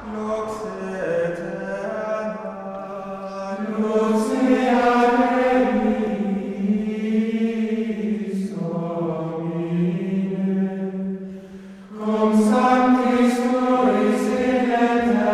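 Background music: slow chanted vocal music with long held notes over a steady low drone. It dips briefly near the end and then resumes.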